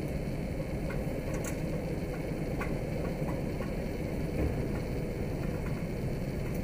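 Diesel shunting locomotive's engine running at a steady low rumble, with a few faint ticks.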